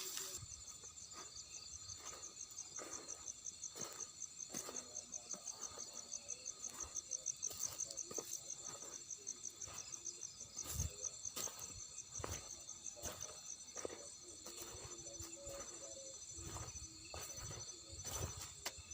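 Crickets and other night insects calling: a fast pulsing trill over a steady high buzz, strongest in the first half and fading in and out later. Faint short rustles recur throughout.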